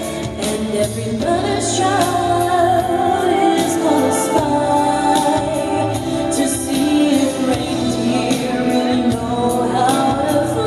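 Christmas music with singing.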